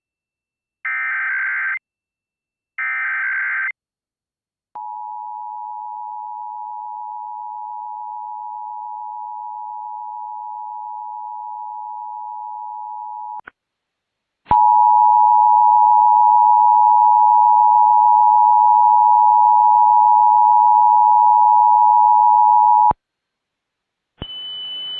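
Emergency Alert System test signals: two short buzzy bursts of the EAS header data, then the two-tone EAS attention signal. The attention signal sounds steadily for about eight seconds, stops with a click, and after a second's gap sounds again, louder, for another eight seconds. A hiss with a high steady tone comes in near the end.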